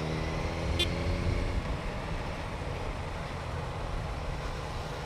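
Motorcycle engine running with a steady low hum. About a second and a half in, its even tone gives way to a rougher, steady low rumble.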